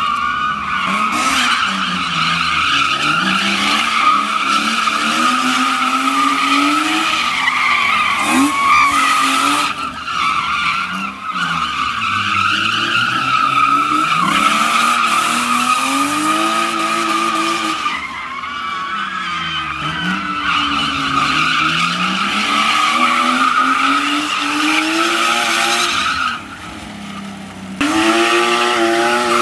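BMW E36 drift car sliding in circles: the tyres squeal without a break while the engine revs rise and fall every couple of seconds. The sound dips briefly a couple of seconds before the end, then returns.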